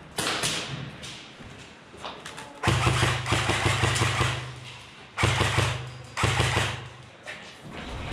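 Three bursts of full-auto fire from an airsoft electric rifle: a motor buzz laced with rapid clicks. The first burst runs about two seconds and the next two are short, under a second each.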